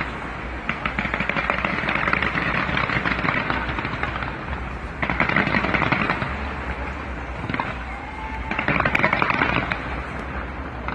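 Fireworks display: dense, rapid crackling and popping of bursting fireworks, swelling louder about five seconds in and again near the end.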